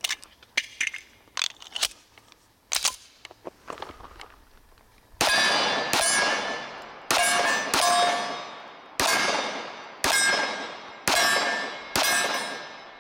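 .45 ACP Commander 1911 pistol firing at steel targets. A quick run of sharp, quieter cracks comes first, then about halfway through eight louder shots roughly a second apart, each followed by a long, fading metallic ring as the steel plates are hit.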